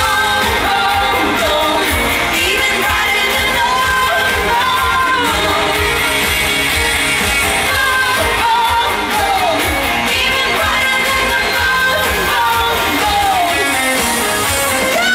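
Live pop music: a woman singing lead over a full band, played loud through a concert sound system and heard from within the audience.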